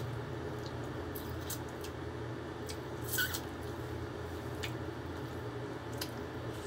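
A person eating fish with her fingers close to the microphone: chewing and lip smacks, a scatter of small wet clicks, the loudest about halfway through, over a steady low hum.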